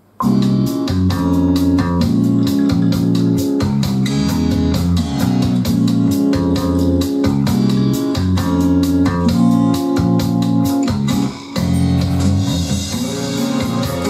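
Music track with keyboard or organ over a steady beat, played through a Nobsound (Douk Audio) Mini digital amplifier into bookshelf speakers and picked up by the room microphone as a sound-quality test. It starts suddenly just after the beginning and briefly dips a little past the middle.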